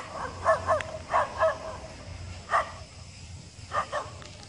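A dog barking repeatedly in short, sharp barks, singly and in quick pairs, with a pause of about a second around three seconds in.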